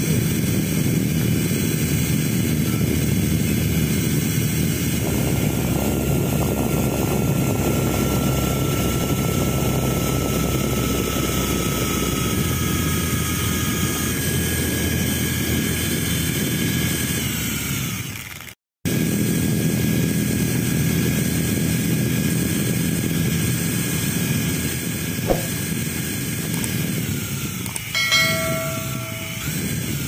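Steady low outdoor rumble with a faint, thin, high whine from the electric motor and rotors of a small remote-control toy helicopter flying overhead. The sound cuts out for a moment about two-thirds of the way through. A short electronic chime comes near the end.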